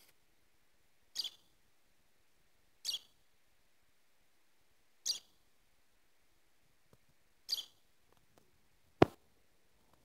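Peach-faced lovebird giving short, high chirps, four of them about two seconds apart. Near the end comes one sharp knock, the loudest sound.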